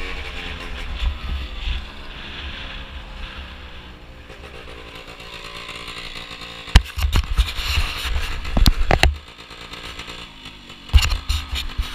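Two-stroke Gilera Runner scooter engine with a Malossi 172 kit, its pitch falling as it slows, then ticking over at low revs. Loud knocks and rumble on the microphone cover it for a couple of seconds in the second half and again near the end.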